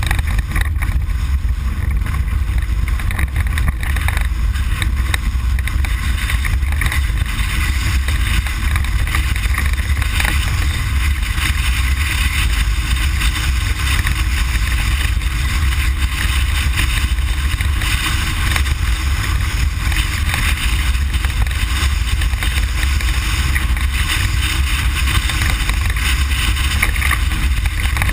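Ford Explorer prerunner driving off-road, heard from inside the cab: a steady deep rumble of engine and drivetrain under a constant hiss of wind and dirt, with frequent knocks and rattles from the truck jolting over rough ground.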